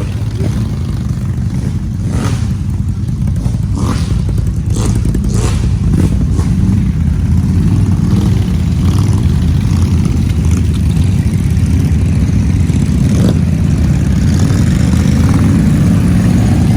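ATV engine running steadily under load, with several short clattering knocks in the first few seconds.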